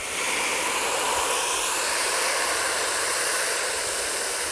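Pistol-grip garden hose nozzle spraying water into a plastic tub, a steady hiss of spray hitting water as the cleaning powder foams up.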